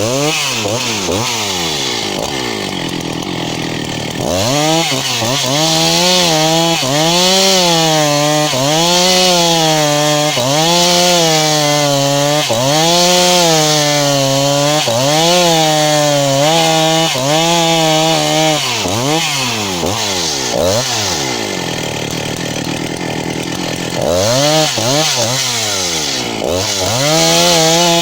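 Two-stroke 272 chainsaw ripping a log lengthwise into boards at full throttle, its engine pitch dipping and recovering about every second and a half as the chain loads up in the cut. Twice, near the start and about two-thirds of the way in, the pitch sags lower for a few seconds before climbing back.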